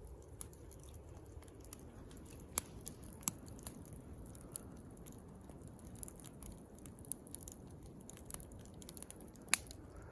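Campfire crackling, with irregular sharp pops. The loudest pops come about two and a half, three and a quarter, and nine and a half seconds in, over a low steady rumble.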